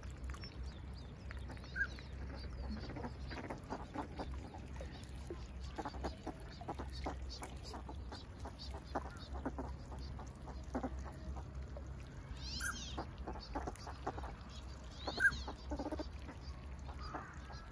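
A group of ducks, mostly northern pintails, calling softly at close range: scattered short quacks and chirping notes over a steady low rumble, with two sharper high calls past the middle.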